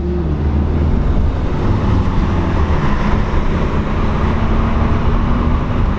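Car engine and tyre noise heard from inside the cabin while driving: a steady low rumble with a faint low hum.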